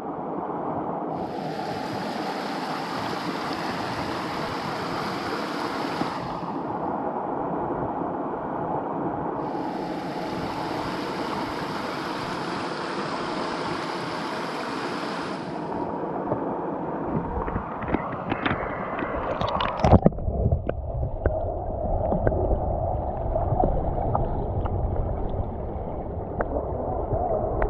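Creek water flowing and gurgling around a kayak, with knocks and splashes from paddling. A brighter rush of water comes and goes twice in the first half, and a low rumble with small knocks takes over after a burst of clatter in the second half.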